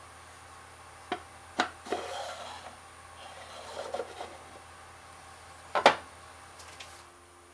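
Cherry burl lid sliding in the grooves of a small thermally modified ash box: a few light wooden clicks, then two spells of wood rubbing on wood as the lid is slid out and back in, and a louder wooden knock about six seconds in, followed by a few faint taps.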